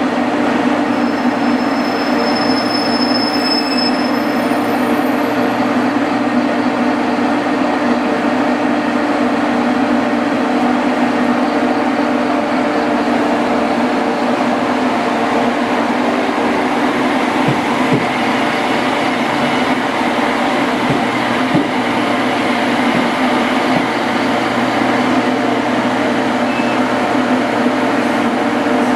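Steady electrical hum of JR Kyushu electric trains standing at the platform, while a second train creeps slowly up to a standing 813-series train for coupling. A few faint clicks come a little past the middle.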